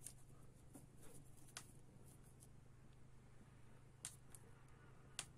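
Near silence: room tone with a faint steady hum and a few faint, scattered clicks.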